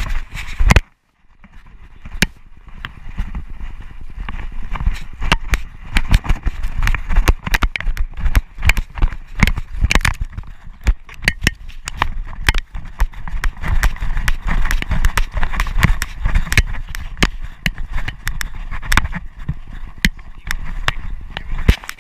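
Camera strapped to a running Doberman pinscher: fast, irregular knocks and thuds of paws striking ground and the mount jolting, over a steady low rumble. The sound drops out briefly about a second in.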